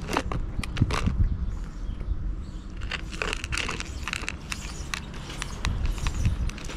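Orange tabby cat eating from a plastic bowl close to the microphone: an irregular run of crunching chews and small clicks.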